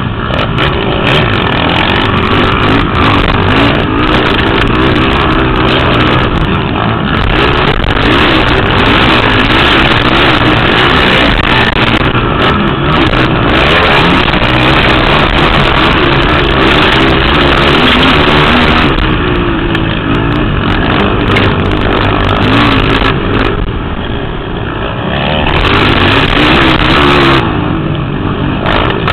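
Motocross racing quads (ATVs) on the track, their engines revving up and down continuously and loudly, with a brief dip in loudness about two-thirds of the way through.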